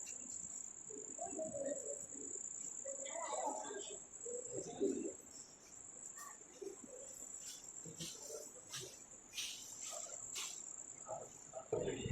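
Insects chirring in a continuous high-pitched trill, with faint distant voices and a few light clicks underneath.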